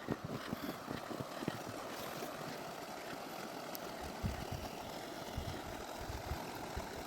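Vehicle engine running with a steady hum and scattered low thumps.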